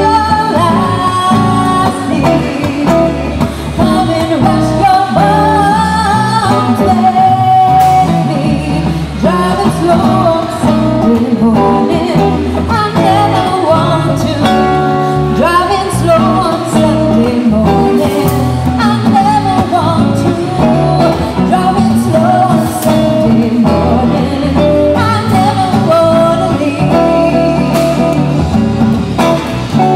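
A woman singing a jazz song into a microphone, accompanied by a Gitane DG330 gypsy-jazz acoustic guitar strummed and picked throughout.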